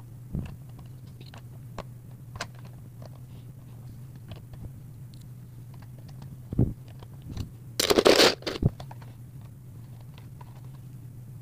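Plastic Lego bricks being handled and pressed together: scattered small clicks and taps, with a louder burst of rustling about eight seconds in, over a steady low hum.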